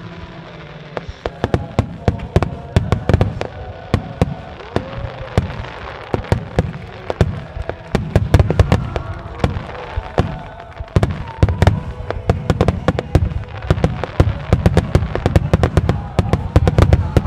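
Starmine fireworks barrage: a rapid, dense string of aerial shell bursts and launch reports over a low rumbling echo, growing louder and denser from about eight seconds in.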